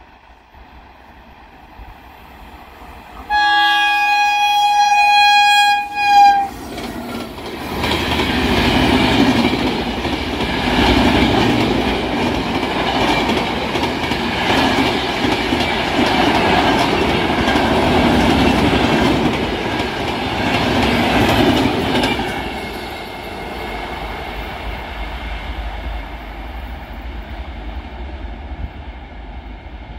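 Indian Railways express train sounding its locomotive horn in one long blast of about three seconds as it approaches. It then passes at speed, its wheels clattering loudly over the rail joints for about fifteen seconds, before the noise eases into a fading rumble as the train moves away.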